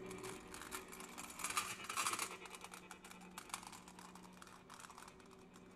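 Irregular soft crackling and clicking in uneven clusters, over a faint steady low hum.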